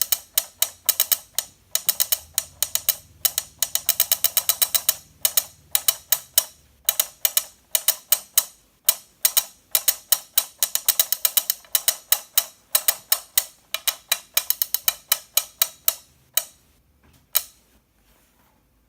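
1996 WACO Caveman alarm clock's motorized caveman figures drumming, their plastic arms clicking and tapping in a quick, uneven rhythm that thins out and stops about 17 seconds in. The drum, cymbal and log are missing, so only bare taps are heard, and the orange-haired figure's left arm does not strike all the way down, which the owner puts down to its motor not working.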